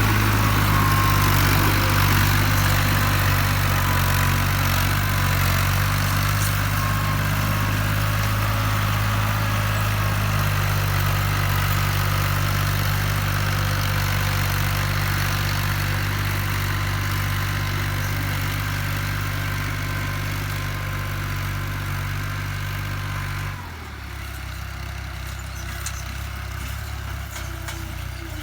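An engine running steadily with a low hum. About 23 seconds in it suddenly drops in level and its note changes.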